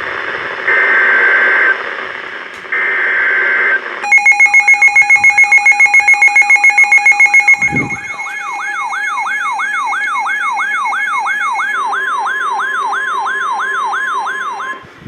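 Emergency Alert System signalling for a tornado warning: two one-second bursts of buzzy SAME header data tones, then a rapidly pulsing alert tone at about five beeps a second. About eight seconds in it turns into a warbling siren-like tone sweeping up and down about three times a second, with a steady alert tone joining it near the end.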